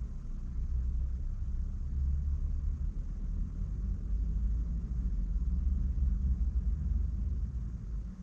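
Low, steady rumble of a car, with small rises and falls in level and no clear engine note.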